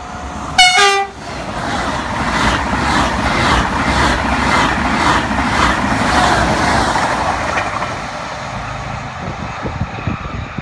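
TGV high-speed train sounding a short horn blast about a second in, then running past at speed: a loud rushing with regular pulses about twice a second, easing off after about eight seconds.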